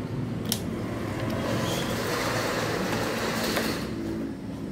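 Janome 680 sewing machine running steadily while stitching a buttonhole, driven by hand on the handwheel and by foot instead of its electric motor. There is a single click about half a second in.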